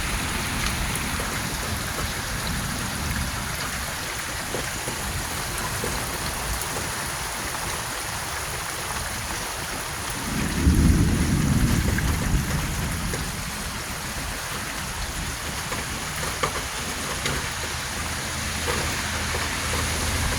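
Steady heavy rain falling, with a low rumble that swells for about two seconds about halfway through.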